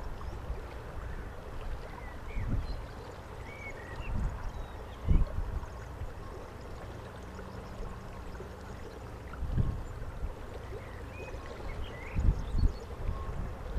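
Outdoor wind noise: gusts buffeting the microphone in brief low thumps several times over a steady rushing background, with a few faint short chirps, likely birds.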